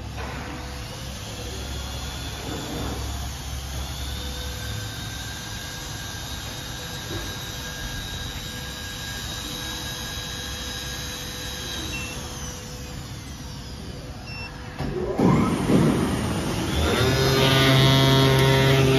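CNC foam cutting machine running: a steady machine hum with thin high whines for most of the time. About fifteen seconds in come a few rising whines as the cutting head starts moving, then from about seventeen seconds a much louder steady buzz with several pitches at once.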